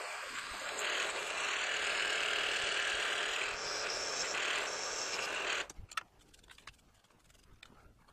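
Milling machine spindle running with a drill bit in its chuck, drilling a quarter-inch clearance hole through a metal plate; the steady machine noise cuts off suddenly about five and a half seconds in, leaving a few faint clicks.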